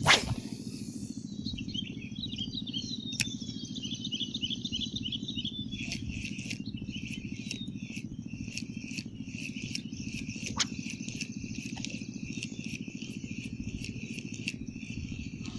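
Insects chirping and clicking with a bird calling in a rapid warble, over a steady low hum, with one sharp knock right at the start.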